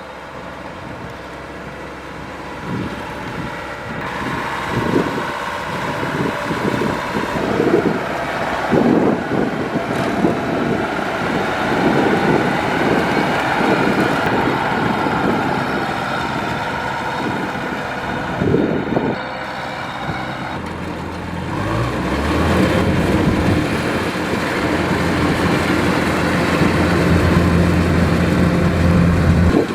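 Kubota DC-105X combine harvester running in a rice field, a steady machine noise with uneven rushes, joined about two-thirds of the way through by a steady low engine hum that grows louder.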